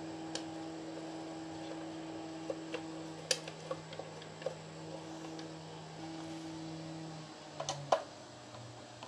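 Scattered light clicks and small knocks as the pool pump's impeller housing and its screws are handled and fitted, over a steady low hum that drops in pitch near the end.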